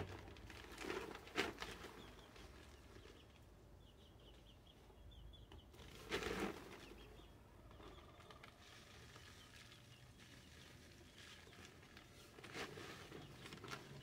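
Faint yard sounds: a few soft clatters and rustles, with a short run of high bird chirps about four to five seconds in.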